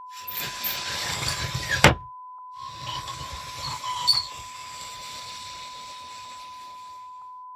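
Old, badly fitted wooden sliding door of a traditional Japanese house being slid in its track, wood rubbing and squeaking against wood, stopping with a sharp knock against the frame about two seconds in. It is slid again about two and a half seconds in, scraping with a few clicks. A steady beep tone runs throughout.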